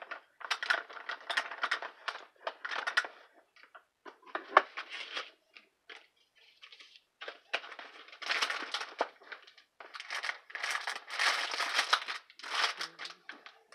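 Hands rummaging through a zippered makeup bag, its clear plastic pouch crinkling and the items inside shifting and knocking, in irregular bursts with a sharp click about four and a half seconds in.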